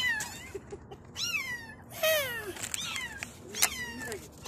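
Young kittens mewing: a string of short, high-pitched calls, each falling in pitch, some overlapping as more than one kitten calls at once. A sharp click sounds about three and a half seconds in.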